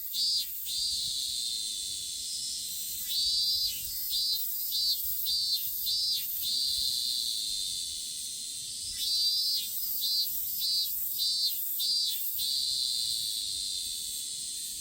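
Robust cicada (minmin-zemi) singing: a steady high buzz, broken twice by phrases of repeated pulses at about two a second, the typical 'min-min-min' song.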